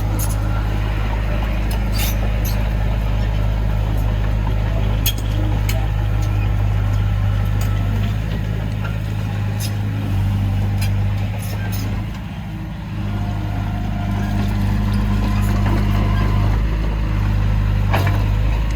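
Heavy diesel engine of a dump truck or bulldozer running steadily, with scattered sharp clanks over it and a brief drop in the engine note about two-thirds of the way through.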